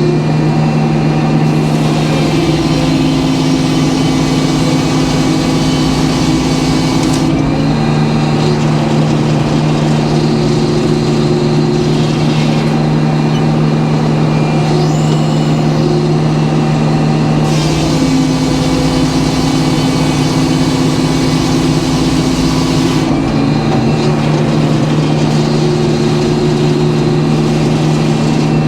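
Sawmill running under power: its engine drones steadily while the saw cuts through white oak. A rushing cutting noise swells over two long passes, and the engine's pitch shifts as each cut takes up and lets off load.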